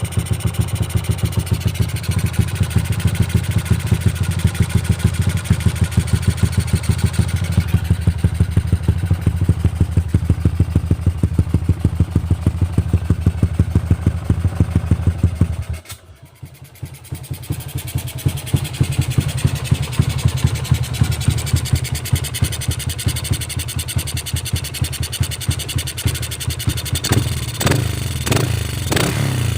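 Yamaha LC135 single-cylinder four-stroke running at idle through an aftermarket Yoshimura tri-oval exhaust, with a steady, even beat of exhaust pulses. About halfway through the sound drops away suddenly and builds back up over a couple of seconds, and it turns sharper and more uneven near the end.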